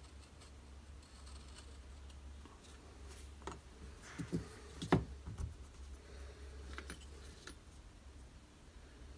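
Small knocks and clicks of knife parts, the handle slabs and metal bolsters, being handled and set down on a workbench, over a faint low hum. They bunch together a few seconds in, with the loudest knock about five seconds in.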